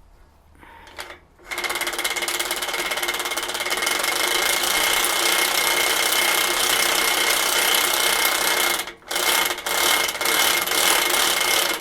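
Electric drive motor and gearing of a model RC bulldozer running its working track, with a steady whine. It starts about a second and a half in, stops briefly near the nine-second mark, then runs in short stop-start bursts.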